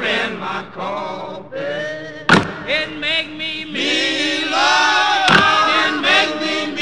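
A song with male voices singing, wavering and sustained, over music, with two sharp percussive hits about three seconds apart.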